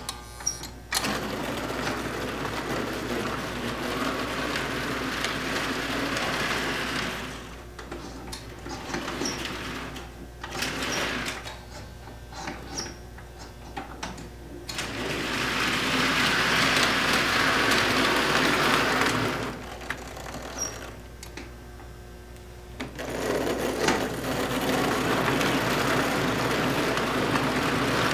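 Vintage American Flyer S-gauge electric toy train running on the layout track, its motor and gears whirring and its wheels rattling over the rails as it pulls a string of heavy metal searchlight cars. The sound swells and fades three times as the train comes close and moves away.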